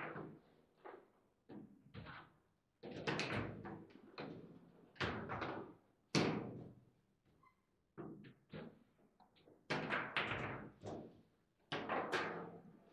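Table football in play: rapid hard knocks and clacks of the ball struck by the plastic figures and rods hitting against the table, in clusters of quick strikes every second or two with short pauses between.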